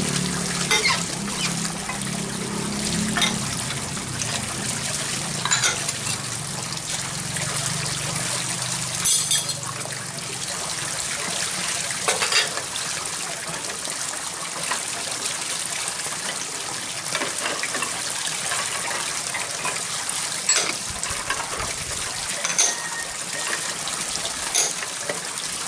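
Dishes being washed by hand in basins of water: steady splashing and trickling, with occasional sharp clinks of bowls and pots knocking together.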